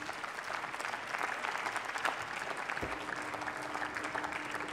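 Parliamentary audience applauding: many hands clapping steadily in a large debating chamber as a speaker walks to the lectern.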